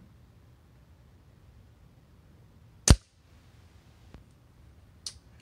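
Gamo G-Force .177 break-barrel spring-piston pellet rifle firing once: a single sharp crack about three seconds in. Two much fainter clicks follow.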